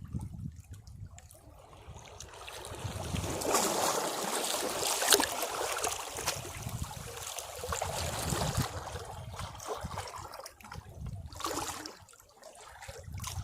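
Sea waves breaking on rocks over a steady low rumble. One wave washes in about three seconds in and runs for several seconds before draining away, and a shorter splash comes near the end.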